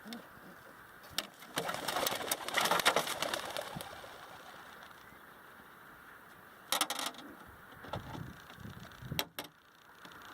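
Homing pigeons being released, their wings clattering in a dense burst for about two seconds as the flock takes off. Two shorter bursts of flapping follow later.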